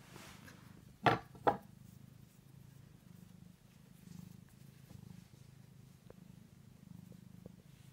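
Domestic cat purring steadily close to the microphone. Two brief loud bumps about a second in, half a second apart.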